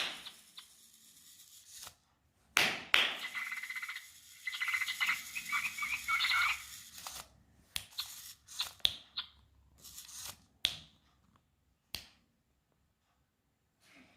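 Sharp snaps or claps, and the battery-powered Barbie Flutter Friends toy hummingbird answering with a run of short, high electronic chirps about five seconds in. More single sharp clicks follow, with quiet gaps between.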